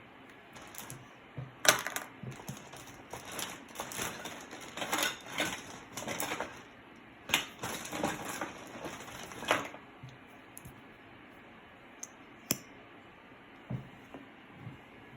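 Small, hard clicking and clattering, as of utensils, containers or bits being handled in slime-making, in a dense run for about ten seconds, then a few scattered clicks.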